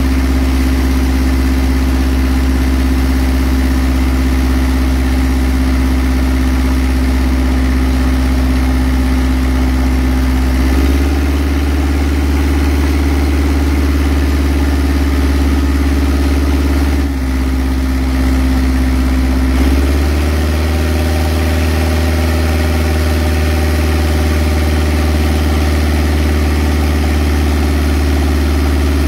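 Engine running steadily while driving a deck-wash water pump that blasts seed oysters off a workboat's deck. Its speed steps up about a third of the way in, dips briefly, then rises again.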